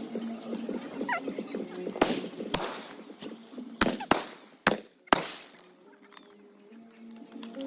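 About six sharp cracks, firecrackers going off, over faint background music.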